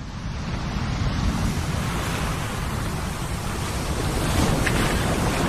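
Steady rush of ocean surf, swelling up over the first second or so and then holding even.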